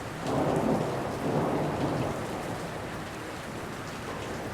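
Steady rain with a low rumble of thunder that swells just after the start and fades over about two seconds.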